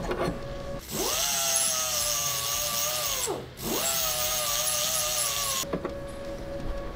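Small right-angle disc sander with a red sanding disc, run in two bursts of about two and a half and two seconds with a short break between. Each burst spins up with a rising whine and then runs steady under a high hiss. It is grinding down an LED headlight bulb's oversized ballast so the bulb fits the headlight housing.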